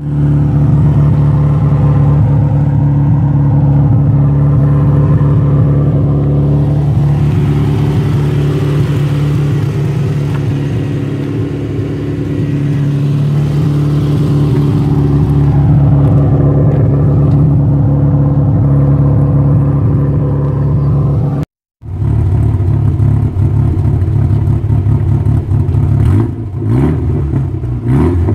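Toyota TownAce van's engine running at a steady idle, heard at the tailpipe through its newly fitted muffler and 3-inch flared stainless steel exhaust tip: a steady low exhaust note. After a brief silence, the engine is revved up and down a few times near the end.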